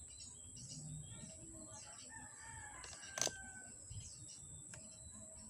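A rooster crowing outdoors, with small birds chirping throughout. A single sharp click a little after three seconds in is the loudest sound.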